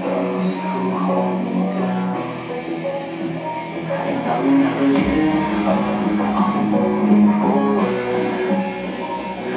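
Music with guitar, the notes held steady, with a change in the bass line about five seconds in.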